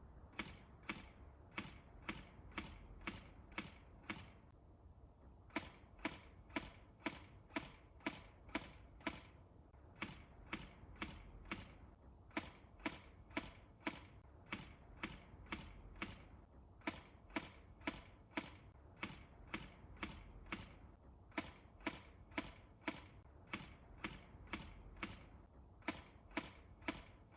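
Tokyo Marui Steyr AUG high-cycle airsoft electric gun firing single shots, two to three a second, in strings broken by short pauses; each shot is a short, sharp crack.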